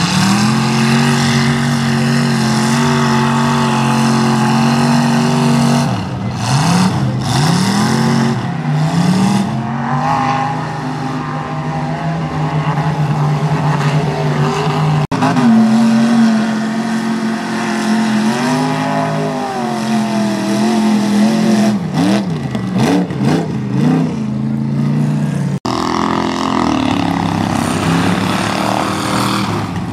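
Mud bog truck engine at high revs. It holds a steady, loud high pitch for stretches, then swings up and down in quick blips as the throttle is worked.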